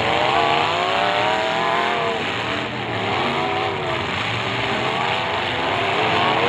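Engines of full-size demolition derby cars revving, their pitch rising and falling over a steady noisy din.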